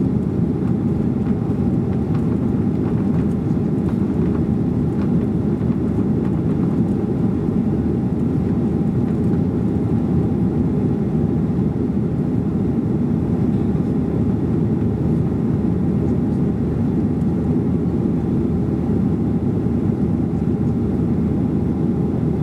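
Steady cabin noise of a Boeing 737-800 climbing, heard from a seat behind the wing: its CFM56-7B engines at climb thrust and air rushing past the fuselage make an even low roar, with a faint steady hum above it.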